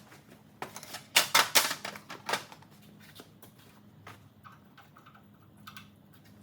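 Short bursts of crackling from welding an exhaust pipe, tack welds, the loudest cluster about one to two and a half seconds in, followed by sparser scattered ticks.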